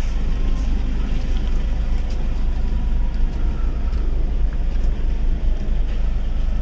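Steady low rumble of a moving vehicle, mixed with wind buffeting the microphone.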